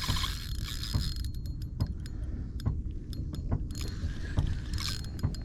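Fishing reel being worked, with irregular mechanical clicks and creaks over a low steady rumble.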